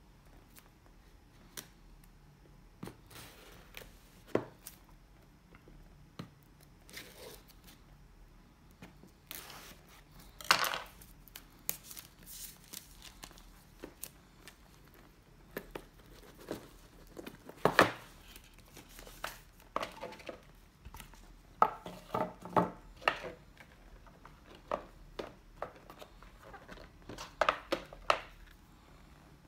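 A sealed smartphone box being opened and unpacked: plastic wrap and seal tearing and crinkling, with scattered clicks and knocks of the cardboard box and its contents being handled. The sharpest knock comes a little past halfway.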